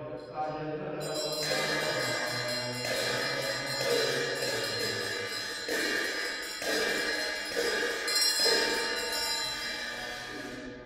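Tibetan Buddhist monks' ritual music: loud, bright sustained instrument tones with a few short breaks, taking over from their low droning chant about a second in.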